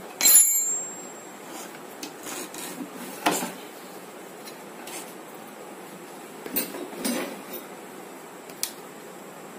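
Hand tools clinking and knocking against the metal frame and motor mount of a wet grinder as the motor's mounting nuts are tightened. The loudest clink comes just at the start and rings briefly, followed by a few scattered knocks and rubbing sounds of handling.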